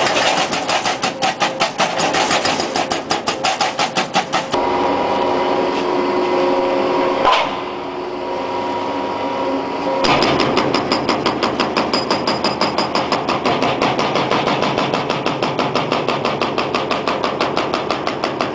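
Hydraulic breaker on a Brokk 180 demolition robot hammering in rapid, even blows. It stops for several seconds about a quarter of the way in, leaving a steady hydraulic hum with one knock, then resumes hammering.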